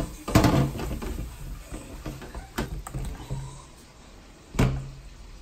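Wire whisk beating beer batter in a bowl, a rustling stir broken by several sharp clinks of the whisk against the bowl; the loudest clink comes near the end.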